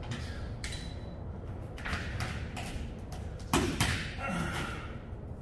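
Claw hammer tapping the air chute's retaining pins into the ceiling inside a refrigerated trailer: a few separate knocks, the loudest a sharp hit about three and a half seconds in.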